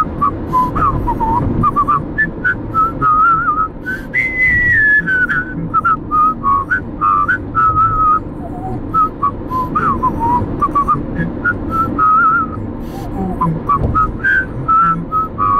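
A whistled melody, a whistling duet with hand-cranked barrel organ, moving in short phrases over a steady low rumble of road noise from a moving car.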